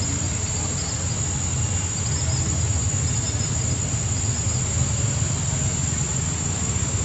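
Outdoor ambience: a steady high-pitched insect drone with faint, scattered chirps above it, over a constant low rumble.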